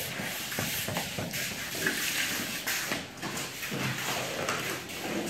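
Steel hand trowels and a long-handled shovel scraping and spreading wet terrazzo mix over a floor: irregular scrapes with light knocks.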